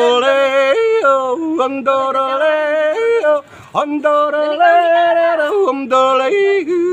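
A man singing unaccompanied, holding long notes that step up and down in pitch, with short breaks between phrases.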